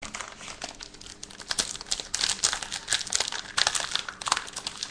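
Foil wrapper of a trading-card pack crinkling as it is handled and torn open, a dense run of crackles that grows louder after about a second and a half.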